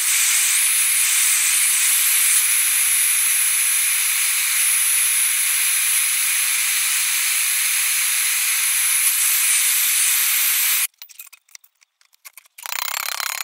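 Blow lamp flame burning with a steady loud hiss as it heats a steel bracket in a vice so it can be bent. The hiss cuts off suddenly about eleven seconds in, leaving a few faint clicks, and returns shortly before the end.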